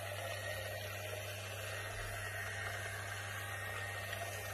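Small battery-powered DC motor of a homemade propeller boat running steadily: a continuous whir over a low hum.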